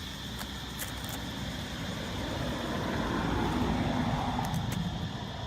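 A motor vehicle passing by: its noise swells from about two seconds in and fades again near the end, over a steady high-pitched hum and a few faint clicks.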